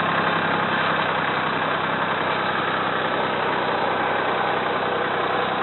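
Tractor engine running steadily, pulling a garlic digger that cuts and loosens the bulbs.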